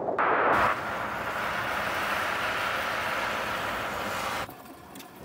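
Volkswagen ID.4 electric SUVs driving past on lake ice: a steady rushing noise of tyres and air with no engine note, louder at the start, cutting off suddenly near the end.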